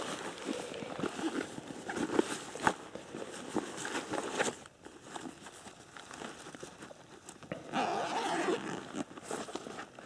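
Handling of a small fabric first-aid pouch as it is set down and opened: scattered rustles, clicks and crinkling of the packaged items inside, with a louder stretch of rustling about eight seconds in.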